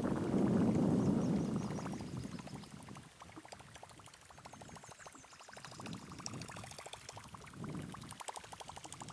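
A rushing noise at first, then from about three seconds in a rapid, even ticking with a watery gurgle as a Whopper Flopper topwater lure is reeled in across the surface.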